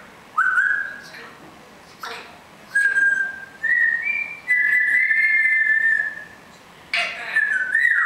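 Pet parrot whistling: a string of clear single-note whistles that steps up in pitch and then holds one long note for about a second and a half, with a short sharp call in between.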